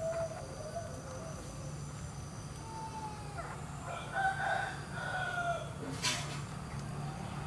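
A rooster crowing in the background: shorter calls early on, then a longer drawn-out crow about four seconds in, over a steady low hum. A brief sharp noise comes about six seconds in.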